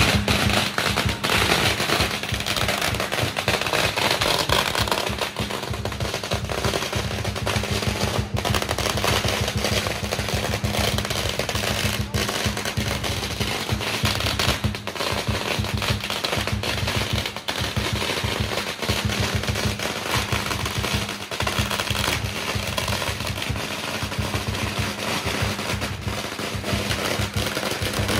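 A long string of firecrackers going off, a continuous rapid crackle of small bangs.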